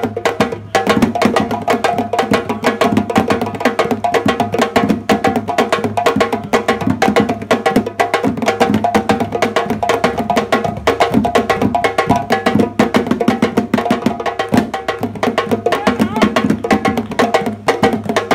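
Ensemble of West African drums, goblet-shaped djembes played with bare hands together with a drum struck with a stick and the hand, playing a fast dance rhythm of dense, sharp strokes.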